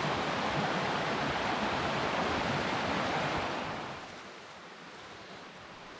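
Small rocky woodland stream rushing steadily, an even white-noise rush of water. It drops away sharply about four seconds in, leaving a much quieter background.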